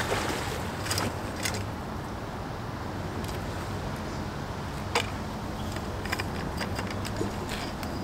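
Scattered clicks and knocks from a landing net and fishing gear being handled on a concrete ledge, the sharpest about five seconds in, over a steady low background rumble.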